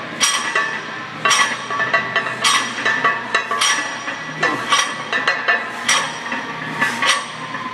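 Unclamped iron weight plates clinking and rattling on a loaded 225 lb barbell at each bench-press rep, a sharp metallic clink with a short ring about once a second. The plates have no collars and shift along the sleeves as the bar moves.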